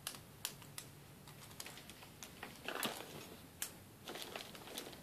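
Faint, scattered clicks and taps of small toiletry items, such as a glass perfume bottle, being handled and put away, with a brief rustle about three seconds in.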